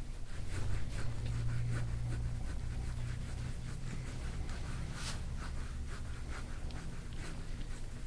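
Gua sha scraping tool dragged over oiled skin of the back in short, repeated scratchy strokes, about two or three a second, one stroke louder about five seconds in. A steady low hum runs underneath.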